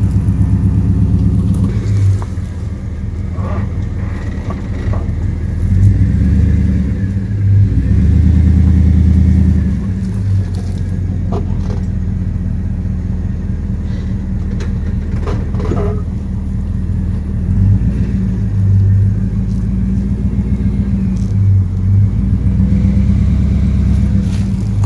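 GMC pickup truck's engine running under load as it tows a travel trailer slowly, its note swelling and easing several times, strongest for a few seconds just before the middle.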